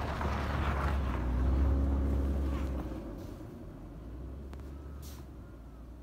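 KiHa 40 diesel railcar's engine and running gear rumbling low out of sight, swelling for the first couple of seconds and then fading away from about three seconds in. A brief hiss about five seconds in.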